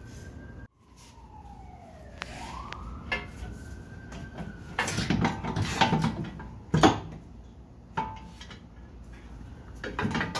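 Metal clanks and knocks as the old lower control arm is worked free of the front suspension, a cluster of them with the loudest a little under seven seconds in. Underneath, a fainter siren wails, its pitch falling and then rising slowly.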